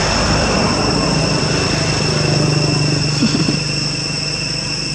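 Steady shrill drone of insects held on a few high pitches, with the low rumble of a passing engine swelling and fading in the middle.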